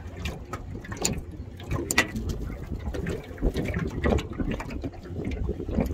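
Scattered clicks and knocks of handling a fishing rod and a just-caught small flounder, two sharper clicks about a second and two seconds in, over a steady low rumble.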